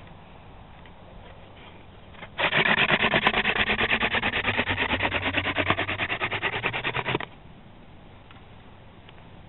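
Bull thistle hand-drill spindle spun fast back and forth in the notch of a balsam fir hearth board: a friction-fire drill. It makes a loud, rapidly pulsing grinding rub that starts about two and a half seconds in and stops abruptly about five seconds later.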